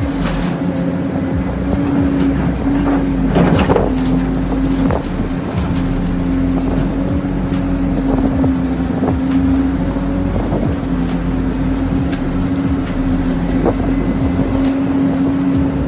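Small electric motors of radio-controlled model construction vehicles running with a steady whine, with scattered clicks and knocks, the loudest about three and a half seconds in.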